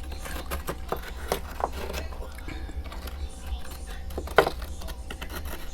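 Freezer frost being bitten and chewed close to the microphone: a run of irregular crisp crunches, the loudest about four seconds in, over a steady low hum.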